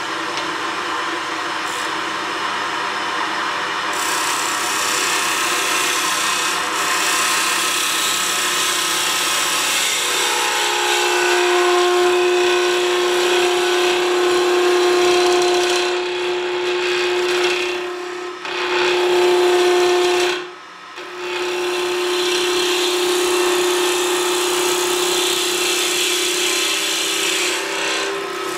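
Wood lathe turning a softwood blank while a gouge takes fine cuts across it, giving a continuous shaving noise. A steady hum joins about ten seconds in, and the cut breaks off briefly twice a little past the middle.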